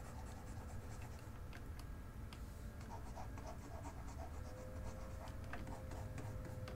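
Faint scratching and light taps of a stylus on a drawing tablet as sculpt brush strokes are made, over a faint low hum.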